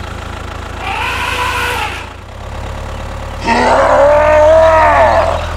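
Miniature tractor's engine running with a steady low rumble, with two drawn-out pitched calls over it: a fainter one about a second in and a louder one about three and a half seconds in.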